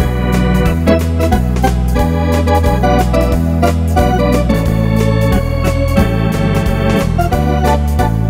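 Wersi two-manual electronic organ playing a step fox (foxtrot) medley: melody and chords over a stepping bass line and a steady accompaniment beat.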